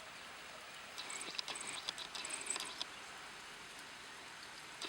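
Heavy rain falling: a faint steady hiss with scattered drips and patter of drops, busiest from about one second to just under three seconds in.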